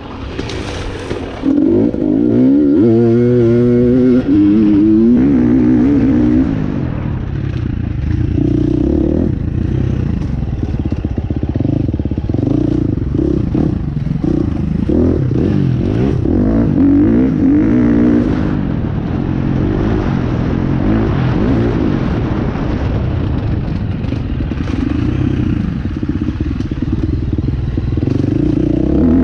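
KTM enduro dirt bike engine running hard on a trail ride. It revs up and down as the throttle opens and closes, with a sharp climb in pitch about two seconds in.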